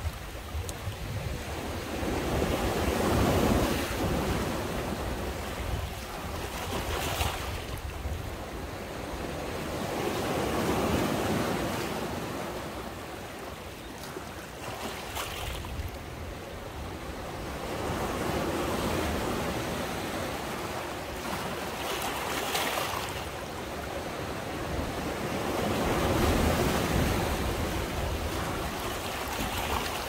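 Sea waves surging and washing back, the sound swelling and easing every few seconds, with a sharper hiss of a breaking wave three times.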